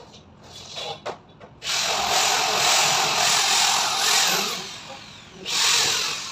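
Handheld power drill running in two bursts: a long one of about three seconds, then a short one near the end.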